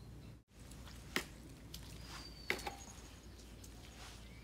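Faint outdoor background with a few soft footsteps on dirt ground and, about two seconds in, a bird's thin falling whistle.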